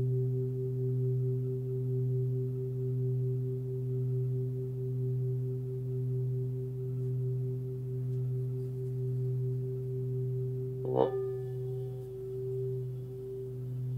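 A 28 cm hand-forged Tibetan singing bowl tuned to 126 Hz (B) ringing in a long, steady sustain with a slow waver in its tone. About eleven seconds in it is struck once with a mallet, a bright hit that renews the ring.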